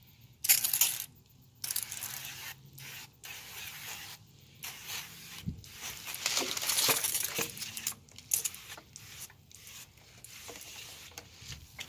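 Aerosol spray-paint can hissing in a string of short bursts with brief gaps between them, as a graffiti tag is sprayed stroke by stroke.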